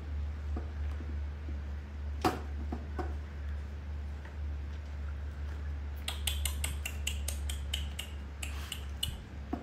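Light clicks and taps, with one sharp click about two seconds in, then a quick run of short ticking clicks over the last few seconds, all over a steady low hum.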